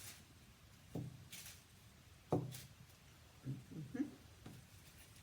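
A paint-dipped toy pig stamped onto paper in a few soft, separate taps, with brief faint murmurs between them.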